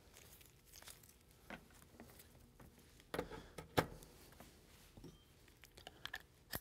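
Faint clicks and rustling of XLR cables being handled and plugged in, connectors seating into a mixer's input and into a handheld dynamic microphone. The loudest clicks come a little after three seconds and just before four.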